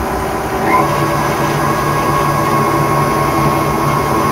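Electric tilt-head stand mixer running steadily, its flat beater creaming butter with powdered sugar in a steel bowl; the motor steps up slightly in pitch about a second in.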